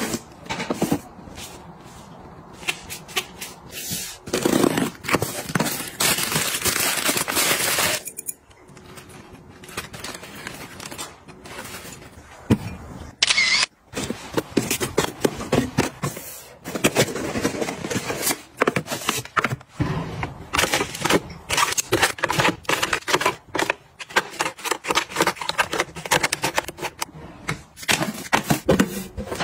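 Close-up handling sounds of household organizing: plastic packaging rustling, and boxes and containers being set down and slid into place with many small clicks and taps. The longest rustling comes around six to eight seconds in.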